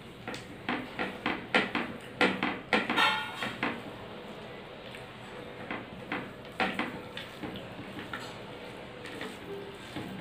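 Hand eating from a plate of rice and curry, with clicks and clinks of the plate and steel bowls: a quick run of taps over the first few seconds, one ringing briefly, then a few scattered taps later.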